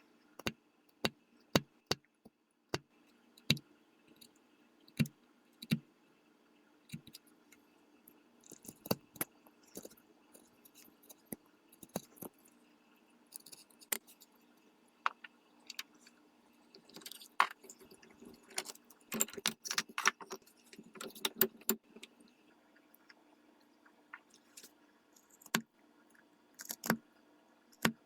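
Irregular sharp taps and clicks of a metal trigger guard being handled and pressed into the inletting of a walnut rifle stock, a tight fit. A busier run of quick rattling clicks comes about two-thirds of the way through, over a faint steady hum.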